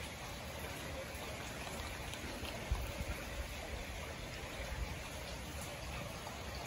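Steady hiss of background noise, with a few soft low bumps about three seconds in and again near five seconds.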